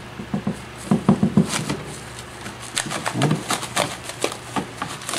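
Irregular crackling and clicking as hands pry the first half of a mold off a skull, with the plastic sheeting around it crinkling.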